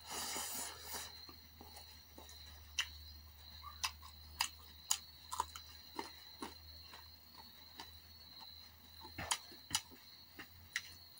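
Close-miked eating sounds: wet chewing of rice and chicken in the first second, then scattered sharp mouth clicks and lip smacks over a low steady hum.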